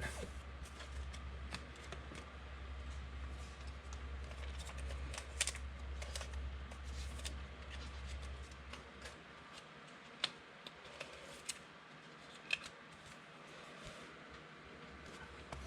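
Trading cards being handled and sorted: faint light clicks, taps and slides of card stock, with a few sharper ticks toward the middle. A low steady hum sits underneath and drops out about halfway through.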